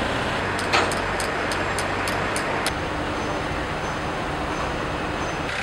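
Construction machinery engines running steadily, with a run of light, sharp clicks about three or four a second in the first few seconds.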